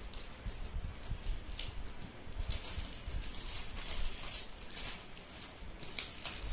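Plastic courier mailer crinkling and rustling as it is cut open with scissors and a boxed item is slid out, with light handling bumps.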